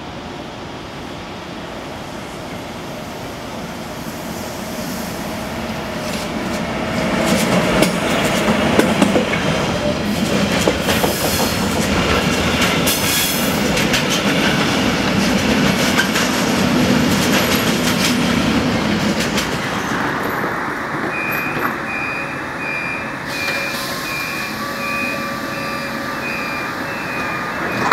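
A freight train of truck trailers and containers on wagons passes close by, growing louder as it comes, its wheels clattering over the rail joints. Near the end a short beep repeats about twice a second.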